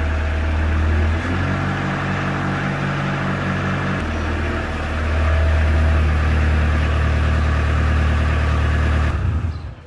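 Manitou Maniscopic SLT 415 telehandler's diesel engine running while the hydraulic boom is raised. The engine note shifts about a second in and again at about four seconds, and the sound cuts off near the end.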